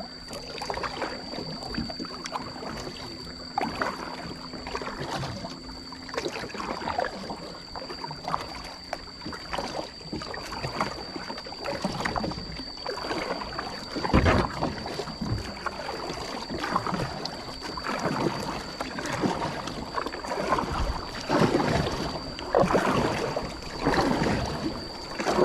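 Kayak paddle strokes dipping and splashing through the water in a steady rhythm, one stroke every second or two.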